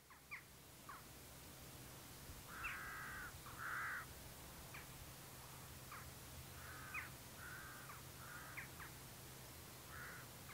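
Crows cawing: a loose series of harsh calls, loudest in a pair about three and four seconds in, over a faint steady low hum.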